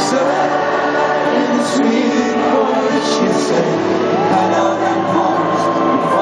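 Live band music with a man singing over piano and guitar, loud amplified sound in a large hall.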